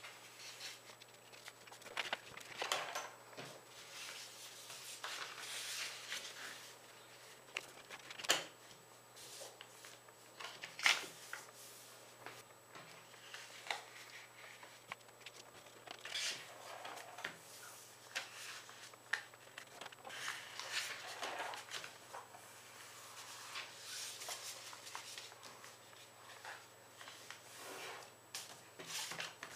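A sheet of paper being handled and folded by hand: irregular rustling and crinkling as the folds are made and creases pressed, with scattered sharp snaps, two louder ones about 8 and 11 seconds in.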